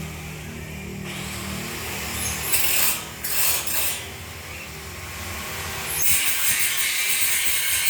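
Metalworking on galvanized square hollow tubing: a steady low motor hum with a few harsh bursts, then a loud, harsh hiss starting about six seconds in.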